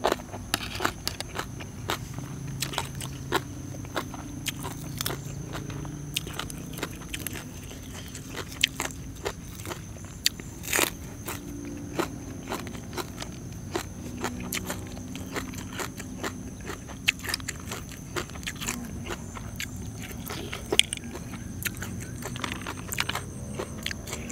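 A person biting and chewing crunchy food close to the microphone: many sharp, irregular crunches throughout, the loudest about eleven seconds in.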